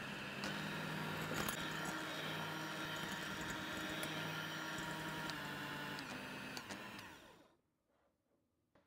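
Electric hand mixer running steadily, its wire beaters whipping egg whites in a glass bowl to stiff peaks. The motor winds down and stops about seven seconds in.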